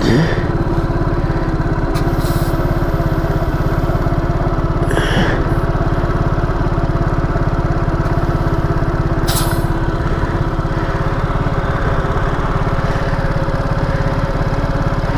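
A small scooter engine idling steadily close by, with a few short hisses over it, the clearest about five and nine seconds in.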